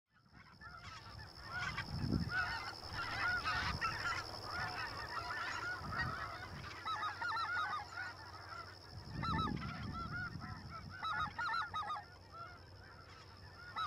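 A large flock of snow geese calling, many short, high yelping honks overlapping, fading in over the first two seconds. A steady high-pitched tone and a few low rumbles run beneath.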